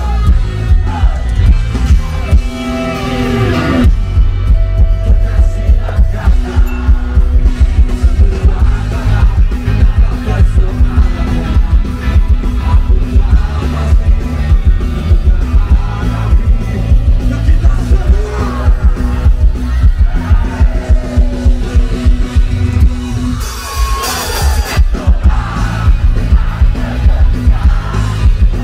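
Live rock band playing loud through a festival PA: electric guitars, bass, keyboards and a drum beat with a steady pulse, with a sliding guitar line about three seconds in.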